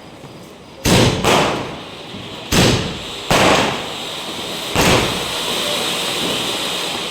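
Firecrackers bursting: five sharp bangs, two in quick succession near the start, each ringing out briefly, with a steady hiss building from about halfway through.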